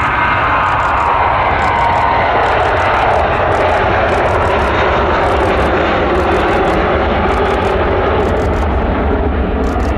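Airbus A321's twin jet engines at takeoff thrust as it accelerates down the runway and rotates near the end, a loud steady rumble whose pitch slowly falls as it passes.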